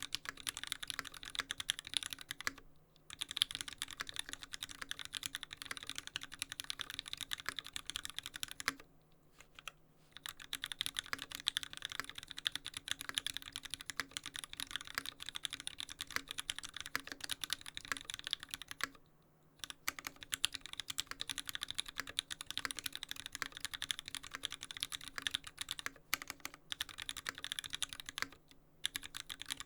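Steady, fast typing on an LZ Stan custom mechanical keyboard with lubed Gateron Yellow linear switches, an aluminium plate and GMK keycaps: a dense run of keystrokes broken by four short pauses.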